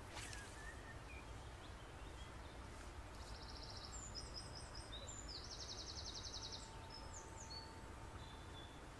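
A small songbird singing, with bursts of rapid high trills and short chirps from about three seconds in to near the end, over a faint, steady outdoor background. A single sharp click right at the start.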